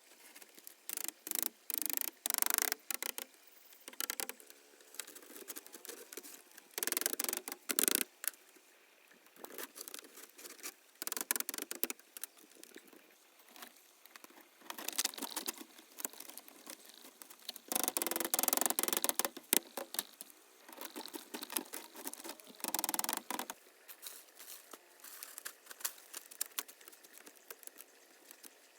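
Irregular clicks and taps mixed with short bursts of scraping or rustling, a second or two at a time, the noises of hands working with materials.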